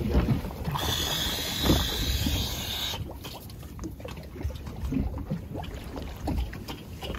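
Wind rumbling on the microphone, with a strong hiss of escaping air about a second in that lasts about two seconds and stops sharply: a scuba diver at the surface venting air from the buoyancy compensator to descend.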